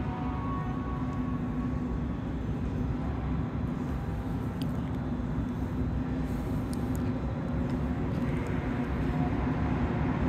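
Rumble of an approaching rubber-tyred metro train, with a steady low hum, growing louder near the end.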